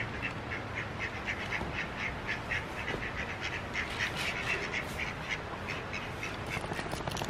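A flock of poultry calling in short, repeated calls, about three or four a second.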